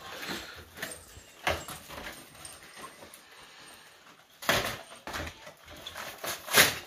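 Cardboard chocolate-egg packaging being pulled apart and handled: irregular rustles and crackles, the loudest about a second and a half in, about four and a half seconds in, and near the end.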